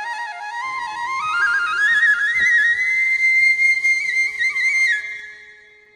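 Solo flute music: a melody climbing in quick steps, then dwelling on high ornamented notes before fading away about five seconds in.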